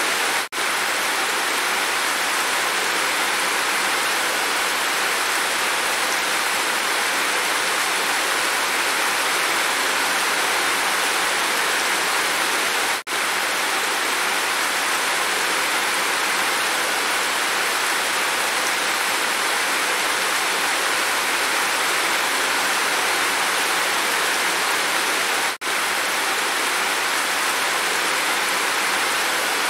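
Steady rain falling and running off a roof edge: a dense, even hiss. It cuts out for an instant three times: about half a second in, near the middle, and near the end.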